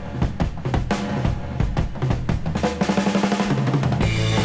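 Background music with a steady drum beat; the music gets fuller near the end.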